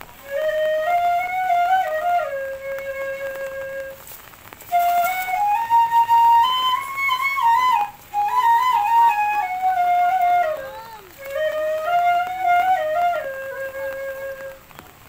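Background music: a solo flute melody played in short phrases separated by brief pauses.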